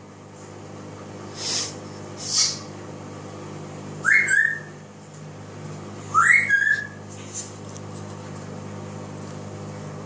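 African grey parrot whistling: two quick upward-sliding whistles about two seconds apart, each ending on a short held note. These follow two brief hissy sounds earlier on.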